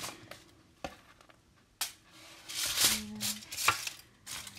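Metal utensil scraping and clicking on a foil-lined baking tray as a freshly baked pizza is cut and slices are lifted: a few sharp taps, then louder scrapes in the second half.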